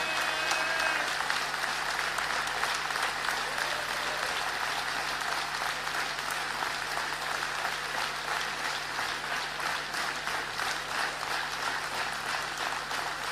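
Large hall audience applauding steadily, a dense, even clapping that goes on without a break.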